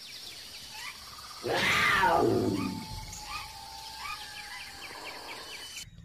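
Nature sound effects: birds chirping over a steady high insect-like hiss, with a loud animal roar about a second and a half in that falls in pitch over about a second.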